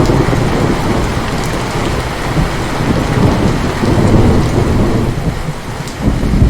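Heavy rain falling, with thunder rumbling through it. The rumble eases briefly and swells again near the end.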